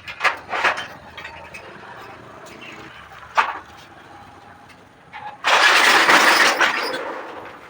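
A few knocks of rubber and tools as an inner tube is worked out of a pickup tyre, then about five and a half seconds in a loud hiss of roughly two seconds that fades away: the air left in the tube escaping.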